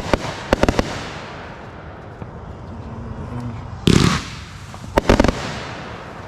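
Consumer firework cake firing aerial shots: several sharp reports near the start, a loud bang about four seconds in, and a quick cluster of bangs about a second later, with a crackling hiss between the reports.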